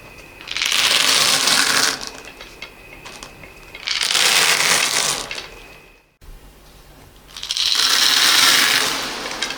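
Small beads poured in three separate pours, each a rushing rattle lasting about a second and a half, with lighter scattered clicking between them. A brief silence after the second pour.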